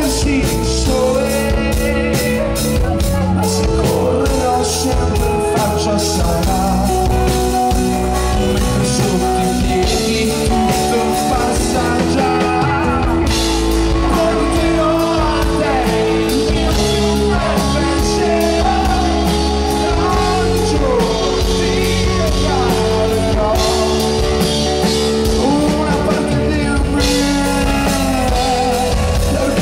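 Live rock band performing through a PA: a male lead singer over acoustic guitar, electric guitars, bass and drum kit, at a steady loud level.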